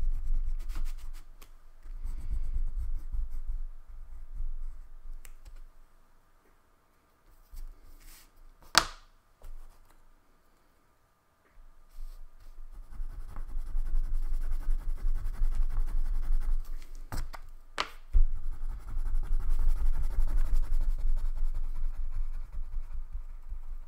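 Wax crayon scribbling rapidly back and forth on paper while colouring in a large area, in two spells with a quiet pause in between. A few sharp clicks stand out, once in the pause and twice in the second spell.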